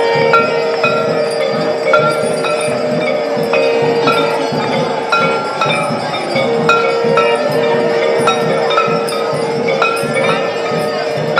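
Aarti bells struck in a steady rhythm, about once a second, over a long held note and a dense crowd-and-river hum.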